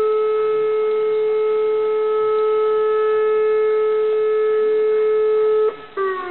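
Fire brigade alarm siren holding a steady call-out tone, the alarm that summons the volunteer fire brigade to a call-out. Near the end the tone breaks off and the siren winds down, its pitch falling.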